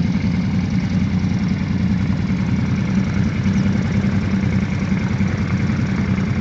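Quad bike (ATV) engine running at a steady low speed as the quad wades through deep water, with no revving.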